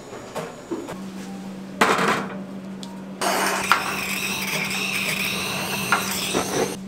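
Electric mixer whirring steadily for a few seconds, starting about three seconds in and cutting off near the end, over a steady low hum; a short clatter comes just before it.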